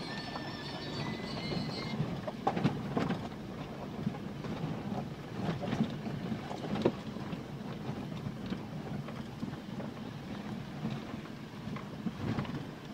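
Ford Endeavour SUV heard from inside the cabin, crawling over a rough stony forest track: a steady low rumble of tyres and suspension, with scattered knocks and clunks as the wheels go over stones.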